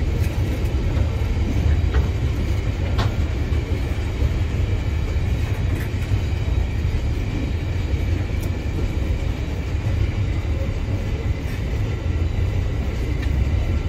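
Open freight wagons of a train rolling past close by: a steady low rumble of steel wheels on the rails, broken by a few brief sharp clicks.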